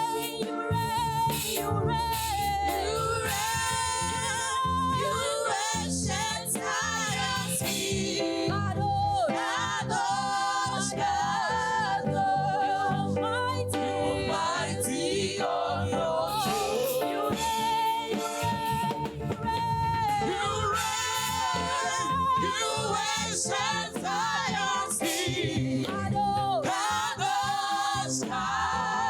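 Church choir singing a gospel praise song over instrumental accompaniment.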